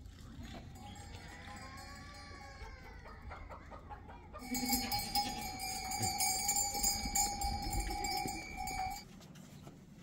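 Farm animals, likely goats, calling in the first few seconds. Then, about four seconds in, a louder steady metallic ringing with jingling starts and cuts off suddenly about a second before the end.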